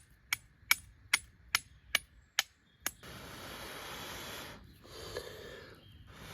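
Flint and steel struck eight times in quick succession, about two and a half sharp strikes a second. This is followed by two long, steady blows of breath into a grass tinder nest to coax an ember, which does not take flame; the camper blames grass that is a little too wet.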